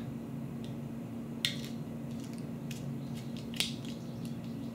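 Fingers picking at a small plastic butter packet that will not open: faint crinkles and ticks, with two sharper crackles about a second and a half in and near the end. A steady low hum runs underneath.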